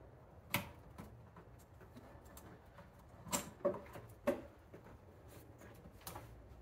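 Sharp clicks and knocks of a rubber air intake hose and its metal hose clamp being worked onto a Nissan Xterra's throttle body by hand. There is one click about half a second in, three in quick succession around the middle, and a lighter one near the end.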